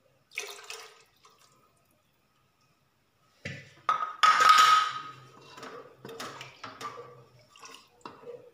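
Milk poured into a pressure cooker of grated carrot, and the thin milky mixture stirred with a wooden spatula, sloshing and splashing. The loudest splashing comes about four seconds in, followed by irregular stirring strokes.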